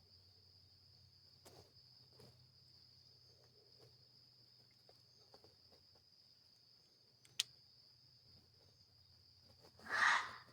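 Night insects, crickets, trilling steadily at a high pitch, with one sharp click about seven seconds in and a short, louder noise near the end.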